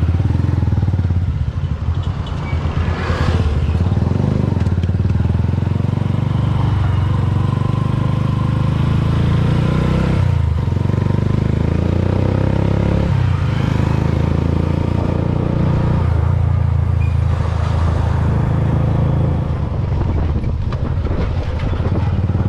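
Motorcycle engine of a passenger tricycle (motorcycle with sidecar) running steadily while riding along the road. The engine note drops briefly twice around the middle.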